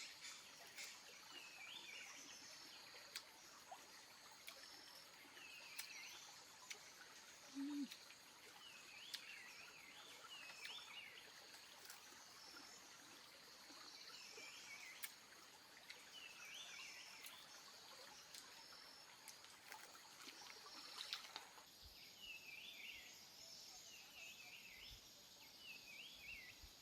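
Faint forest ambience: a bird repeats a short chirping call every two to three seconds over a steady high insect drone, with a few faint clicks.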